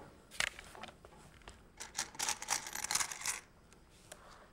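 Clicks and rattling from a cordless drill being handled in the hands, with no motor running. There is one sharp click about half a second in, then a quick run of clicks and scraping from about two seconds in that stops near three and a half seconds.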